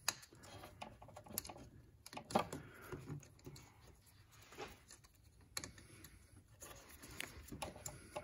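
Faint rustling and scattered small clicks of a plastic electrical connector and sensor wire being handled, as the oxygen sensor's wiring plug is connected and routed.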